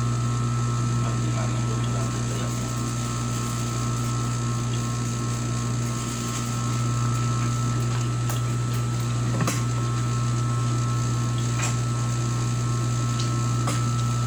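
Electric sewing machine running steadily: a low, even motor hum with a few faint clicks.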